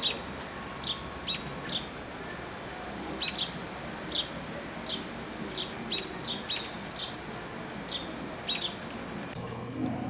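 American robins calling to a fledgling in the nest: a string of short, high chirps, each falling quickly in pitch, coming irregularly about one or two a second.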